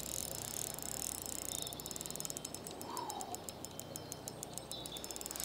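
Spinning reel's drag ticking in a fast run of fine clicks as a hooked pike pulls line off against a drag that is set very light.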